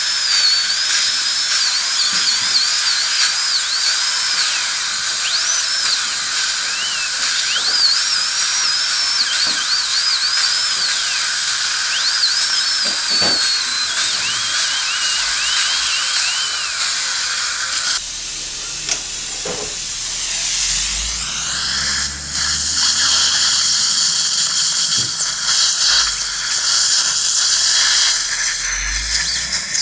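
Dental implant handpiece drilling an implant site in the upper jaw, its high whine repeatedly rising and falling in pitch. About halfway through it gives way abruptly to a steady hiss with a held tone, from surgical suction.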